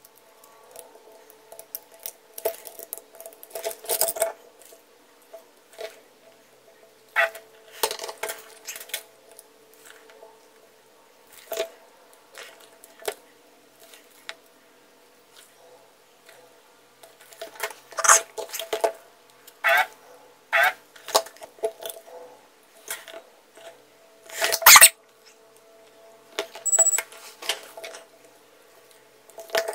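Small hand tools (tweezers, soldering iron, pliers) clicking and clinking against the wires, switch and plastic housing of an opened epilator during soldering, in irregular bursts, with one louder knock about three-quarters of the way through. A faint steady hum runs underneath.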